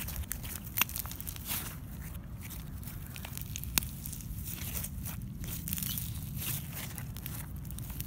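Foam-bead slime mixed with sand slime, crackling and squishing as hands stretch and knead it, with irregular sharp little crackles and pops.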